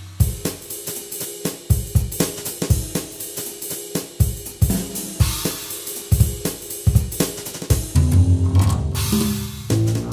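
Background music with a drum kit: steady kick, snare and hi-hat beat under sustained bass notes.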